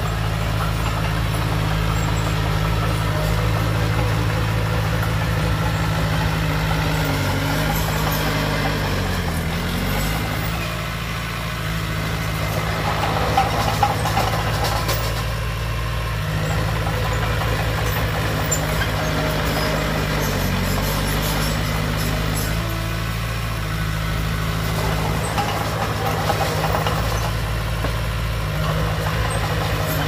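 Small crawler bulldozer's diesel engine running steadily while it pushes soil; the engine pitch sags briefly twice, about a third of the way in and again about two-thirds in, as the blade takes load, with a few sharp knocks near the middle.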